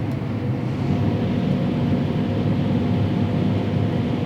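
Diesel engine of harvest machinery running steadily under load, a low drone with a thin steady whine above it.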